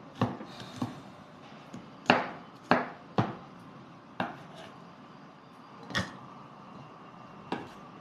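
Kitchen knife chopping shallots on a wooden cutting board: about eight sharp chops at an uneven pace, the loudest about two seconds in.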